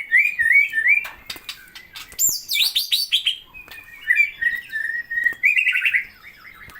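Songbird singing a varied, busy song: quick runs of repeated chirps, a string of steeply falling high whistles about two seconds in, then a rapid trill, with sharp clicks scattered between the phrases.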